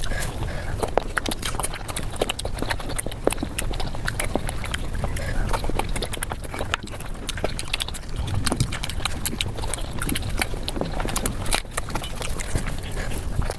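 Close-miked eating sounds played at five times normal speed: a quick, irregular run of mouth clicks and smacks from chewing flatbread with curry.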